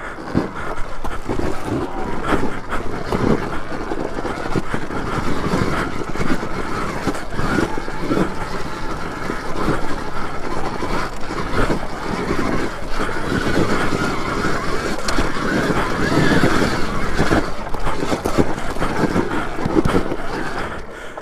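Alta Redshift MXR electric dirt bike climbing a steep rocky trail: the electric motor running under load amid steady rattling and knocking of the chassis, suspension and tyres over rocks.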